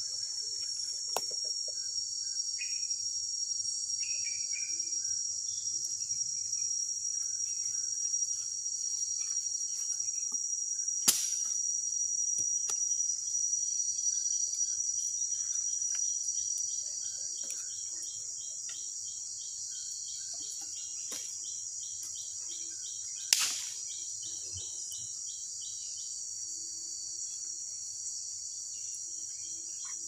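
Rainforest insects keeping up a steady high-pitched drone, joined in the second half by a fast, rhythmic pulsing chirp. Two sharp knocks stand out, one about 11 seconds in and one about 23 seconds in.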